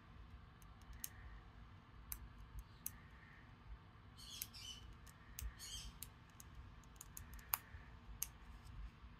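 Faint, scattered clicks and a couple of brief rustles from fingers handling and picking at die-cut paper pieces.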